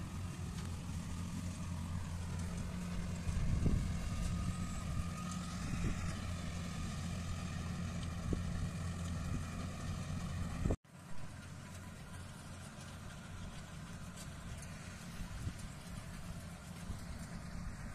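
Rice combine harvester's engine running steadily at a distance, a low hum over a haze of field noise. About eleven seconds in the sound breaks off for an instant, and the hum is fainter afterwards.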